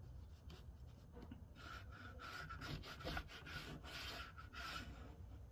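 Chalk scratching on cotton fabric along the edge of a clear ruler as a guideline is drawn: a run of faint short strokes, thickest from about one and a half to five seconds in.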